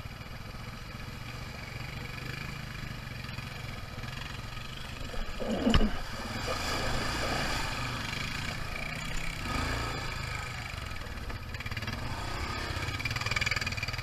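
Dirt bike engine running as the bike rides along, heard from the rider's position, its pitch swelling with the throttle a few times. A sharp knock about six seconds in stands out above it.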